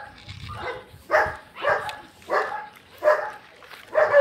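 Dog barking repeatedly, about five short barks in a steady run a little over half a second apart.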